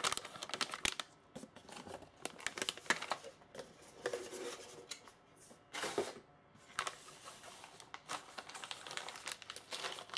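Plastic packaging crinkling and rustling as small kit parts are handled, with irregular light clicks and taps.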